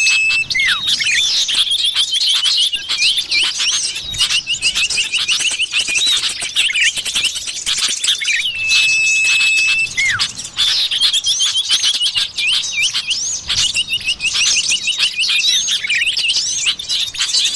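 Common iora (cipoh) lure calls: dense, fast twittering chirps and trills, with a long level whistle about halfway through followed by a short falling note. The pattern repeats about every nine seconds, like a looped recording.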